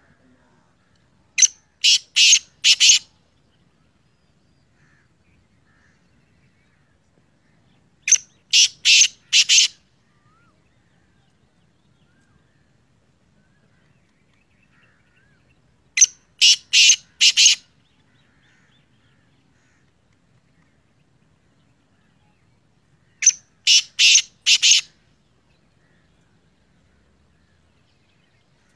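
Black francolin calling: four harsh, grating phrases of about five quick notes each, repeated every seven to eight seconds.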